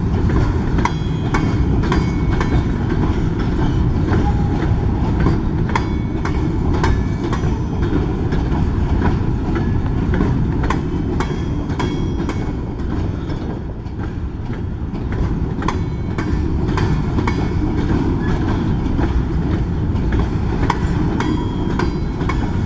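Freight train of covered hopper cars rolling past at steady speed: a continuous low rumble of steel wheels on rail, with frequent sharp clacks and faint brief metallic squeaks.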